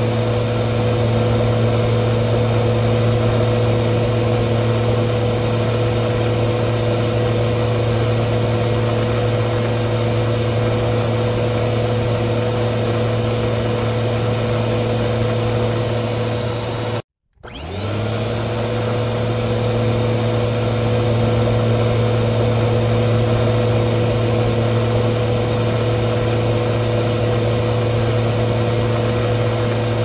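Vacuum cleaner motor running steadily, a low hum under a high whine. About halfway through it cuts out for a moment, then comes back with its pitch rising as the motor spins up again.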